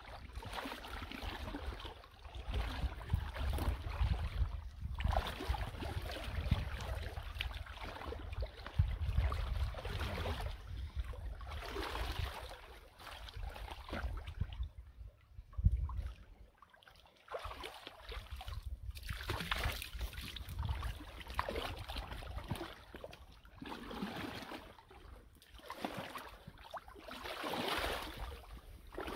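Creek water sloshing and trickling around a clogged culvert pipe inlet as sticks and debris are pulled out of it by hand, coming and going unevenly with a short lull about halfway, then splashing from waders walking through the water near the end.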